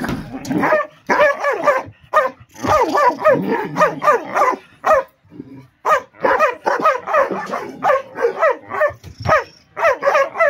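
Belgian Malinois dogs barking rapidly and fiercely from inside a kennel, about three or four barks a second, with a short break about halfway through.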